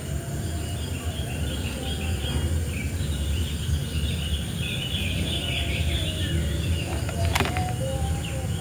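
Outdoor ambience: a steady low rumble on the microphone, with birds twittering in the background and one sharp click about seven seconds in.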